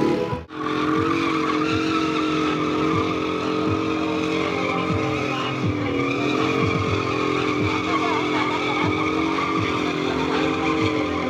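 Small scooter engine held at high revs in a long, steady run with slight rises and falls in pitch, as during a stunt, with a skidding tyre sound in the mix. A brief drop-out comes about half a second in.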